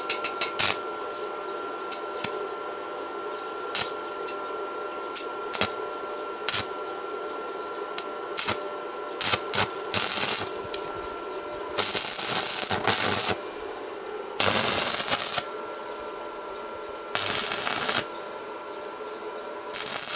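Stick (MMA) welding arc from a Mächtz MWM-355 TB inverter at 154 A with a 3.2 mm electrode, tack-welding rebar. Scattered sharp clicks come as the electrode is struck, then several short crackling arc bursts of about a second each, one per tack, over a steady background hum.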